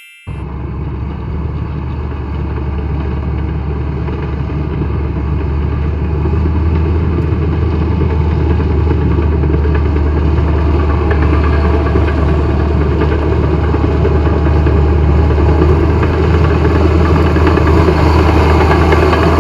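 Bulldozer's diesel engine running steadily with a strong deep hum, slowly getting louder.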